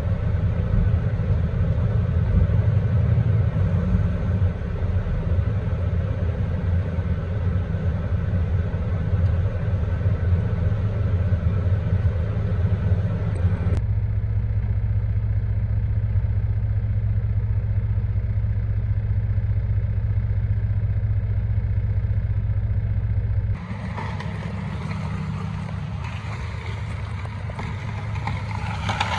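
Log truck's diesel engine running with a steady low drone, heard from inside the cab. The sound changes abruptly about fourteen seconds in and again near twenty-four seconds, where the low drone drops away and a higher, hissing road noise takes over.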